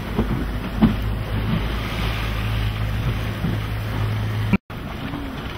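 Boat engine idling with a steady low hum under wind and sea noise. Near the end the sound cuts out for a moment and comes back without the hum, leaving wind and waves.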